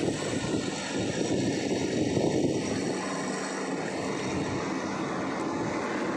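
Long-arm excavator's diesel engine running with a steady drone.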